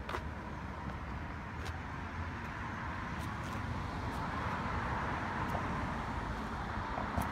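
Street traffic noise, with a vehicle's sound swelling gradually through the middle of the clip. A few faint clicks sit on top.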